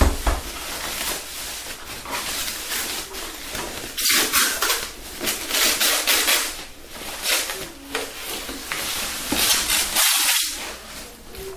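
White protective wrapping rustling and crinkling as a boxed speaker unit is slid out of it. The rustling comes in a series of bursts, loudest about four seconds in and again around ten seconds in.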